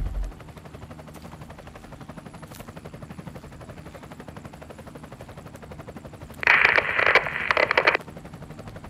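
The last of an explosion's boom dies away in the first moment, leaving a low steady background. About six and a half seconds in, a loud, harsh, choppy noise comes in two stretches for about a second and a half, then cuts off.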